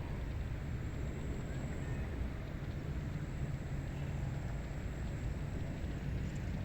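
Steady outdoor wind ambience over a rice paddy: an even, low rumbling noise with a faint low hum underneath. A steadier low hum comes in near the end.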